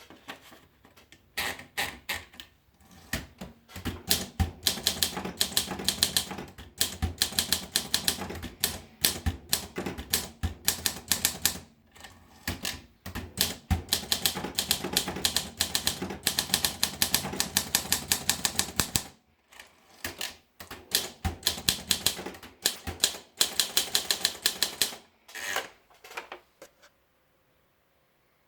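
Olympia SM3 Deluxe manual portable typewriter being typed on: runs of fast, sharp key strikes with a few short pauses, stopping shortly before the end.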